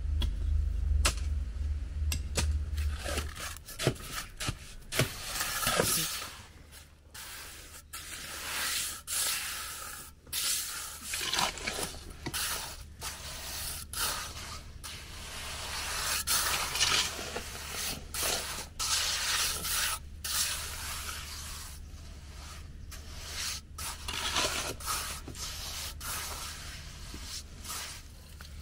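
Irregular scraping and rubbing strokes, some in quick runs, over a low hum that drops away about three seconds in.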